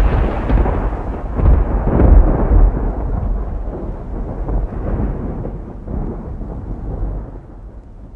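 Thunder rumbling, rolling with a couple of louder swells in the first few seconds, then gradually dying away.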